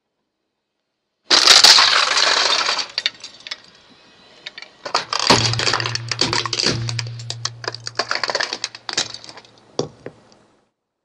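A toy sewing machine being crushed under a car tyre: a sudden loud crunch about a second in, then crackling and a second run of sharp cracks and clinks as the pieces break up, over a low hum.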